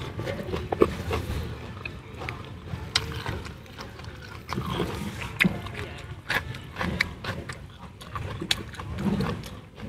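Close-up eating sounds: chewing a fried tofu roll wrapped in perilla leaf, with many irregular sharp mouth clicks, along with the rustle of a fresh leaf being folded around another piece.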